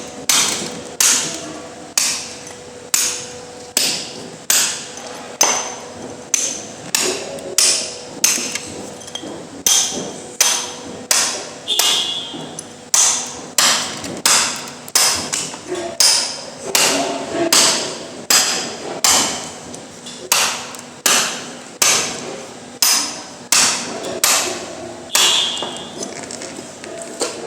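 Steady hammering, about three sharp blows every two seconds, each ringing briefly; the blows grow lighter near the end.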